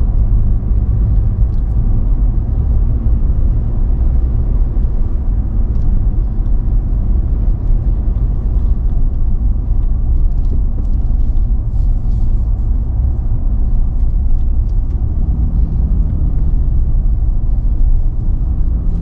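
Steady low rumble of road and wind noise from a pickup truck towing a trailer at speed on a paved road, with no engine revving or gear changes standing out. A faint hum joins the rumble about fifteen seconds in.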